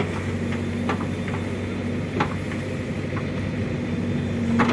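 Diesel engine of a JCB backhoe loader running steadily while the bucket works mud, with a few short sharp knocks, the loudest near the end.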